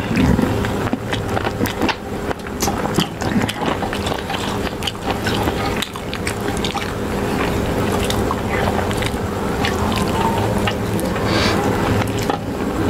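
Close-miked eating sounds: fingers squishing and mixing rice and curry on steel plates, with chewing and lip smacks in quick, irregular clicks over a steady low hum.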